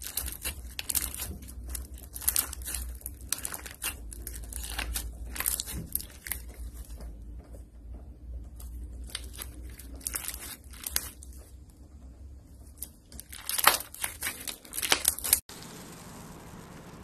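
Slime being kneaded and stretched by hand, a dense run of sticky crackles, clicks and pops. About fifteen seconds in it cuts off abruptly to a steady faint hiss.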